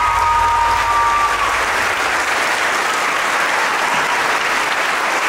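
Audience applauding steadily, with the last held notes of the music fading out in the first second or so.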